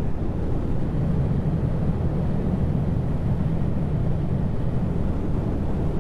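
Motorcycle cruising at steady speed: a constant low engine drone mixed with road and wind noise.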